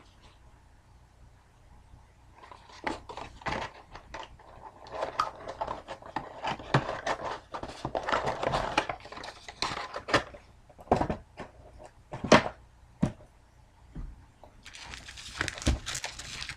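Foil trading-card pack wrappers crinkling and tearing as packs are handled and opened, with scattered knocks and clicks from cards and packs being set down.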